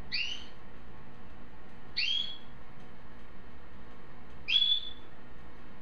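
Three short, high whistled calls about two seconds apart, each sliding upward in pitch: the sound of the Belgian canary.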